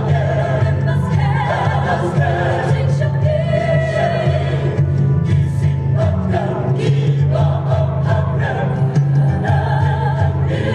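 Mixed choir of men's and women's voices singing together in harmony, held notes wavering with vibrato.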